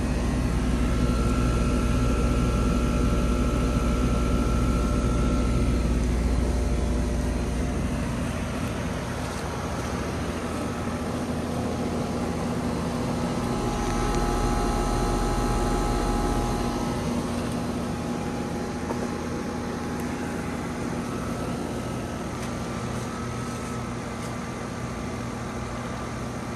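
Rheem RP14 heat pump running in heating mode: a steady mechanical hum with several held tones. A deep low rumble swells during the first several seconds and again about halfway through.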